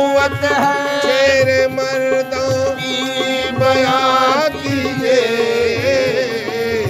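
Harmonium playing a melody over a steady hand-drum beat, in a devotional manqabat performance.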